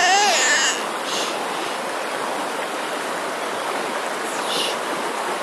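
Flood-swollen river rushing steadily past the bank. A brief high-pitched shout rises over it at the very start.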